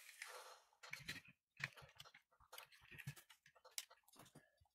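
Faint, irregular clicks and light knocks of plastic parts being handled: a 3D-printed fan duct being fitted by gloved hands onto the plastic print head of a mini 3D printer.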